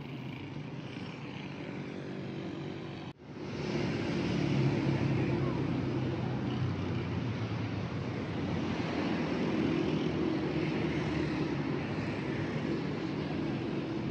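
City street traffic: a steady wash of car and motorbike noise with a low engine hum. It breaks off for an instant about three seconds in, then resumes a little louder.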